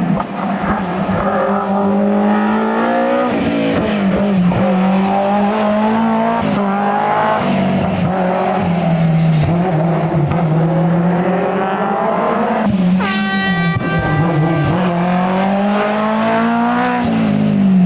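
Historic rally car engine revving hard on a special stage, its pitch climbing and dropping back again and again as it is driven through the gears and corners. A short high tyre squeal cuts in about thirteen seconds in.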